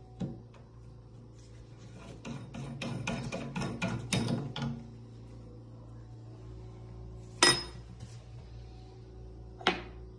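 Metal and plastic plumbing-tool parts being handled: a rapid run of clicking and scraping about two to four and a half seconds in, then two single sharp clicks of metal pieces knocking on a hard surface, one about seven and a half seconds in and one near the end.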